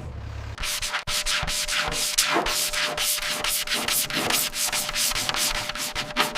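Hand sanding: quick back-and-forth rubbing strokes, about three or four a second, starting about half a second in.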